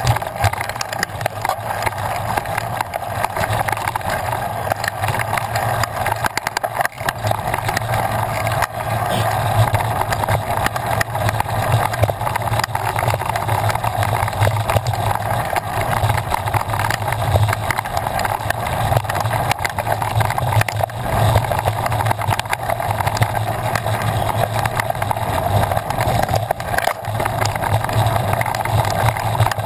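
Mountain bike ridden over a dry dirt and gravel trail: steady tyre rumble with the bike's rattles and clicks and wind noise on the microphone.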